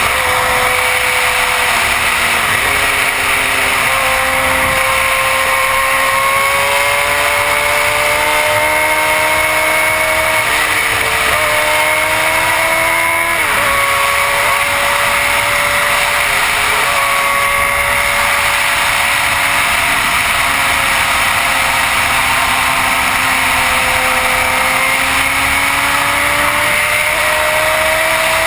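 2006 Suzuki GSX-R1000's inline-four engine under way at speed, its note climbing steadily under throttle and dropping sharply several times, with heavy wind rush over a helmet-mounted camera.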